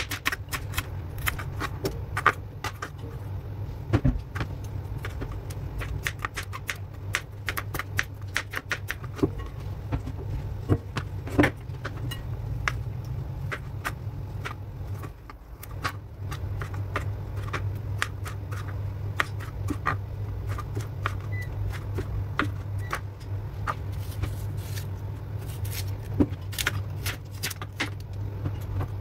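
Kitchen knife chopping celery, cherry tomatoes and apple on a plastic cutting board: irregular runs of quick, sharp taps over a steady low hum that dips briefly about halfway through.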